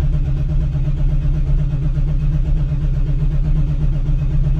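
1996 Pontiac Trans Am's LT1 V8 being cranked over by its starter in freezing cold, turning steadily without catching, on a temporary battery and fuel several years old.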